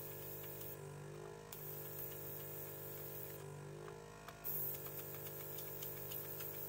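The built-in vacuum pump of an Edsyn Soldapullt ZD500DX desoldering station switching on and off in turn as suction is applied hole by hole. Each time it runs there is a steady hum and a hiss of air being drawn through the hot tip, and the pitch slides down as it cuts out. A sharper jump in level comes as the vacuum kicks in about four and a half seconds in.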